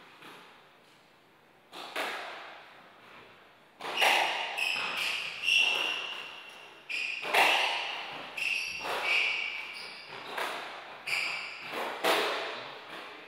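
Squash rally: sharp cracks of the ball off the racket strings and the walls, about one a second from about two seconds in, echoing around the court. Short high squeaks of rubber-soled shoes on the wooden floor come between shots.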